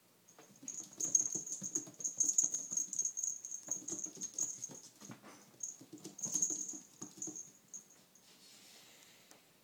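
Kitten spinning after her tail on a tile floor: rapid pattering and scrabbling of paws and claws on the tiles, with her collar jingling in a high ring along with the movement. It comes in two spells with a short break at about five seconds, and dies away near the end.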